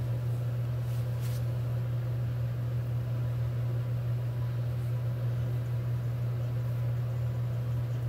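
A steady low hum, unchanging throughout, over a faint even hiss.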